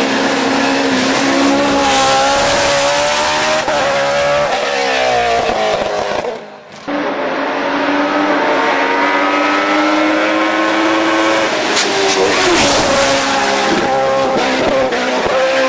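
Judd V8 racing engine in a BMW E36 hillclimb car, revving very high and climbing in pitch through the gears. The pitch drops sharply on lifts and downshifts into the corners. There is a brief break in the sound about six and a half seconds in.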